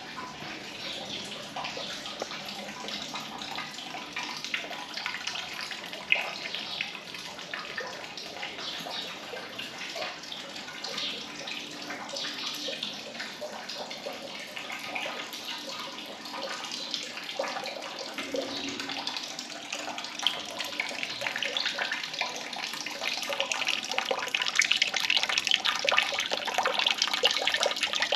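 Running, splashing water, a steady rush that grows louder over the last few seconds.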